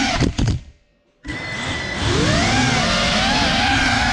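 Geprc Cinelog35 FPV drone's motors and propellers whining. The pitch drops and the sound falls to near silence for about half a second, then comes back suddenly, rises in pitch and settles into a steady whine.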